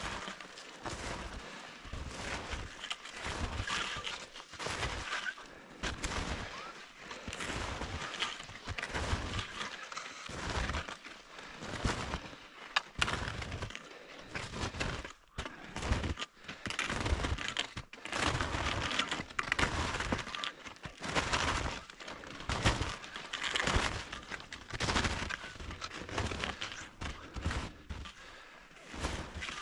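Footsteps crunching through snow at a steady walking pace, about one step a second, each with a dull thump.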